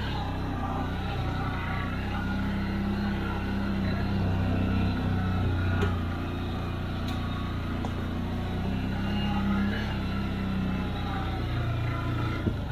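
CFMoto CForce 800 ATV's V-twin engine running steadily while the ATV is ridden, swelling slightly twice as the throttle opens.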